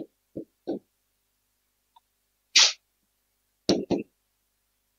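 A man's brief breath and throat sounds at a close headset microphone: a few soft low puffs at the start, a sharp hiss of breath about two and a half seconds in, and two quick bursts about a second later.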